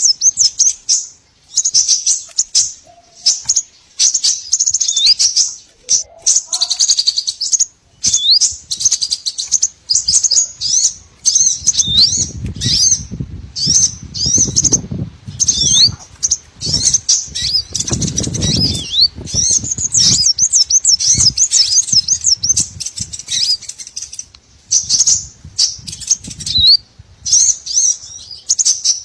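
Fast, high-pitched twittering and chirping of small songbirds, many quick rising and falling notes close together, from a lure recording made to attract small birds. A low fluttering rumble sits underneath from about twelve to twenty seconds in.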